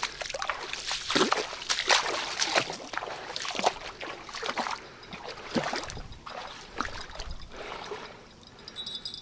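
Irregular splashing and dripping of water as a fishing line is pulled in from the river. Near the end a small bite bell starts jingling.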